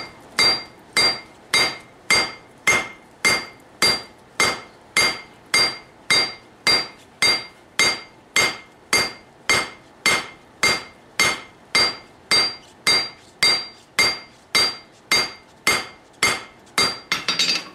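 Blacksmith's hand hammer striking hot steel on an anvil at a steady pace of about two blows a second, each blow ringing, with a few quicker blows near the end. The billet is being forged flat.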